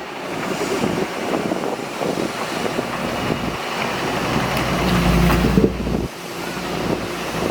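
Diesel engine of heavy earthmoving machinery running at work, its low rumble swelling and falling away as the load changes.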